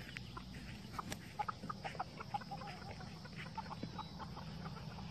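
A hen and her young chicks making quiet short clucking calls, several a second, over a low steady background rumble.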